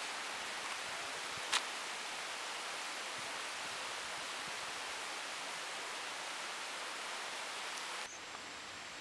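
Steady rush of river water running over rocks. One short click about one and a half seconds in; near the end the sound drops abruptly to a quieter background with a faint high whine.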